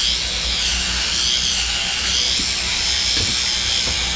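Sheep-shearing handpieces running as two shearers cut through the fleece, a steady buzz over a low hum, its high whine wavering up and down in pitch as the combs work through the wool.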